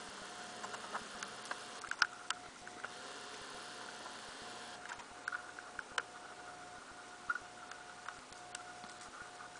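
Handheld video camera's own noise: scattered faint clicks and ticks from handling, over a low hiss and a faint steady tone that breaks off every second or so.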